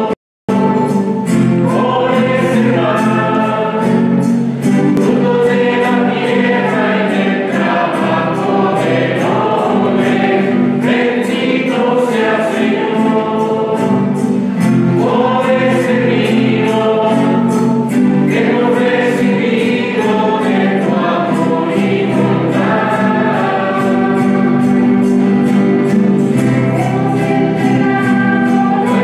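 Church choir singing a hymn with instrumental accompaniment and a steady beat.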